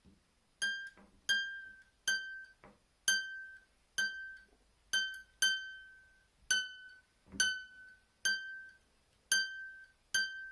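A single high nylon string on a lever harp plucked over and over, about once a second, each note ringing briefly and dying away. Its open pitch is being checked and fine-tuned after the sharping lever was adjusted, and the note shifts slightly in pitch for a couple of plucks past the middle.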